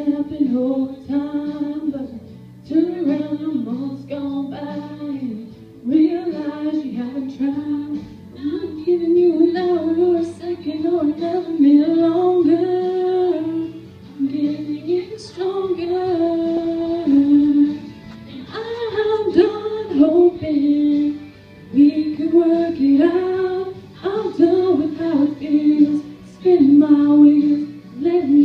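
A woman singing a slow song solo into a handheld microphone, in sung phrases of a few seconds each with short breaths between them.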